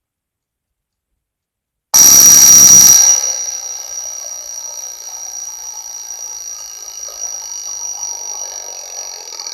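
Mechanical wind-up twin-bell alarm clock going off: its hammer strikes the two bells rapidly in a steady, high-pitched ringing. It starts suddenly about two seconds in, loudest for the first second, then rings on more softly.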